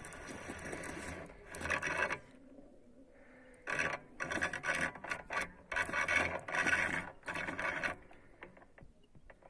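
Fishing reel being cranked in short spurts, a rasping mechanical whir, as a hooked carp is reeled in.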